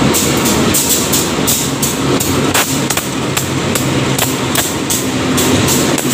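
Diesel locomotive and coaches passing close at slow speed as the train pulls into the platform, the engine giving a steady low drone. Over it runs background music with a quick, steady ticking beat.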